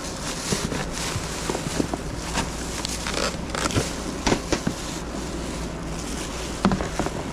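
Clear plastic sheeting crinkling and rustling as a plastic-wrapped mirror is handled, with scattered clicks and knocks of things shifting in a plastic storage tote.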